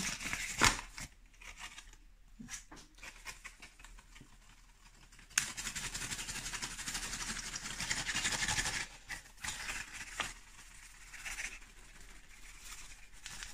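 Paper flour bag crinkling and rustling as it is opened and flour is shaken out onto the worktop. There is a sharp click about a second in and a steady crackling rustle from about five to nine seconds in.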